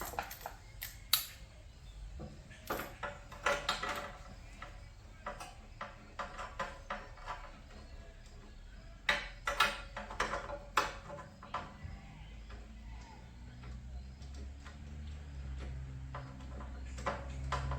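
Metal hand tools and small engine parts clinking and knocking as they are handled, in scattered clicks and taps. A low hum builds over the last few seconds.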